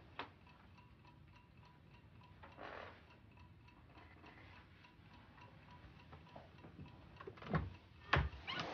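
Faint, even ticking of a clock, with two louder knocks near the end.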